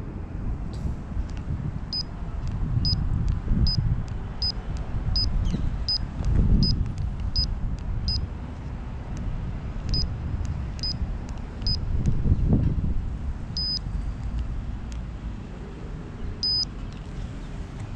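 Bicycle speed meter beeping at each button press as it is set: a run of short, high beeps about one every 0.7 s, then a few slower ones, the last two held a little longer. Under them runs a louder low rumble.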